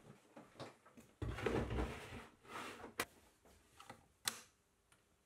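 Workshop handling sounds: a plastic tool case and hand tools being moved about, with a dull knock and rustling, then a few sharp clicks as tools are pulled from a wall rack's clips.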